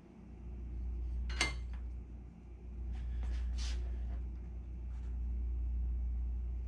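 Light clinks and taps of a thin aluminium aircraft rib being handled and pressed against a wooden workbench: one sharp clink about a second and a half in, then a few softer knocks over the next few seconds. A steady low hum runs underneath.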